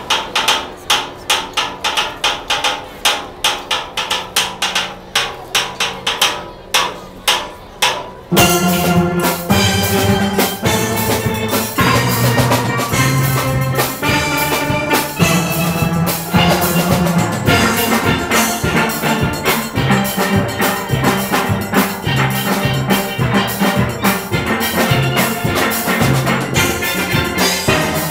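Steel band (steel orchestra) playing: about eight seconds of even, sharp strokes, roughly four a second, then the full band with bass pans comes in and plays on at a louder level.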